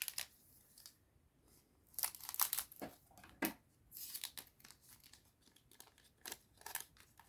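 Trading-card booster pack wrapper being torn open and crinkled, in several short bursts of ripping and rustling.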